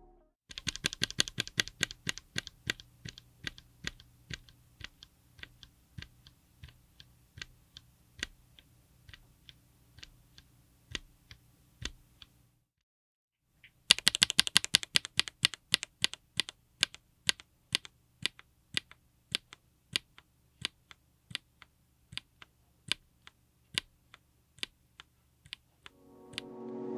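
Mechanical keyboard with HMX Ice Cendol linear switches, on an FR4 plate in an aluminium case, being typed on in two runs of keystrokes. Each run opens with a quick flurry and slows to single keys at about two a second, and there is a pause of about a second between the runs.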